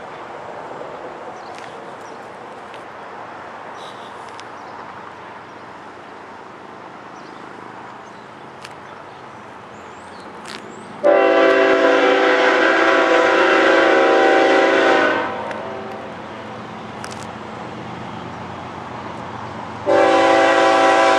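Air horn of an approaching freight locomotive, CSX GE ES44AH 3243 leading an empty coal train, sounding for a road crossing. A blast of about four seconds begins about halfway in, and a second blast starts near the end, over a low, steady rumble of the train.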